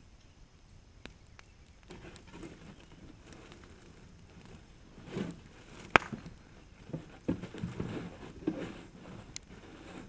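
A long-handled tool prodding and scraping at a water heater tank burning in a fire: scattered scrapes and thuds, with one sharp knock about six seconds in.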